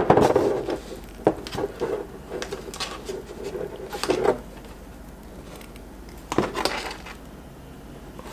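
200-pound monofilament line rubbing through a knot as it is pulled tight on a stainless steel trolling hook. A few clinks and knocks are heard as the hook and line are handled.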